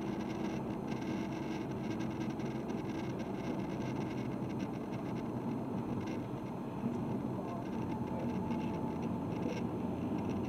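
A diesel car running, a steady drone with no change in pitch.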